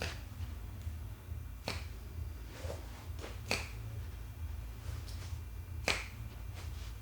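Sharp cracking pops from a barber's massage, most likely finger-joint cracks. Four loud ones come roughly two seconds apart with a few fainter ones between, over a steady low hum.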